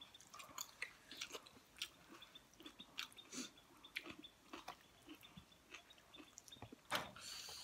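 Faint eating sounds: chewing and biting chicken pieces and a raw tomato, with small wet mouth clicks scattered throughout and a sharper click about seven seconds in.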